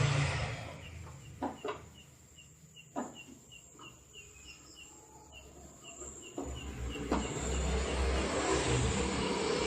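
Low traffic rumble dies away, then a few sharp plastic clicks as the scooter's grill tabs are pushed into place. A high chirp repeats about four times a second in the background, and the traffic rumble builds again in the second half.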